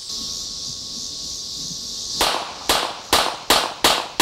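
Insects chirring steadily, then about two seconds in a semi-automatic pistol fires a rapid string of about five shots, roughly two to three a second.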